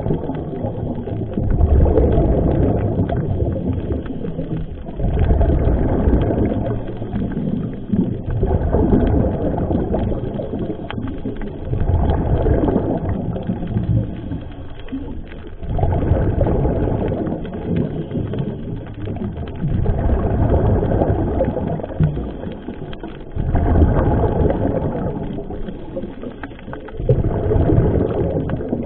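Scuba diver's exhaled bubbles from the regulator, a muffled rumbling gurgle that comes about every four seconds, eight times, with quieter breaks between breaths, picked up by a camera underwater.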